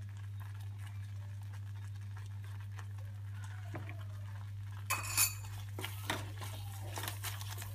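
Steel spoon clinking against a small bowl and the pan as salt is scooped and added to a thick white vegetable sauce in a kadai, with a wooden spatula stirring. A cluster of clinks about 5 s in, and more scattered clinks near the end, over a steady low hum.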